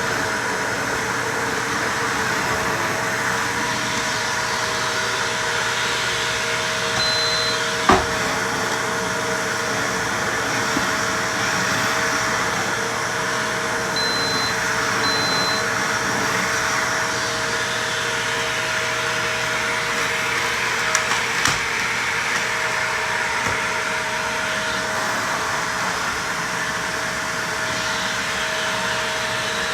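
Vacuum cleaner running steadily with a constant motor whine, with one sharp knock about eight seconds in and a couple of small clicks about two-thirds of the way through.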